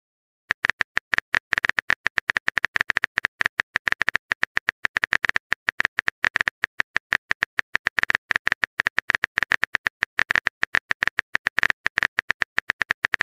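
Rapid, uneven tapping of a phone keyboard typing sound effect, several key clicks a second, starting about half a second in.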